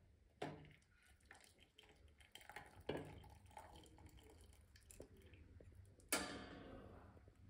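Milk tea being poured from an aluminium saucepan: faint dripping and trickling with a few light knocks of the pan. About six seconds in, a louder splashing pour starts and tapers off.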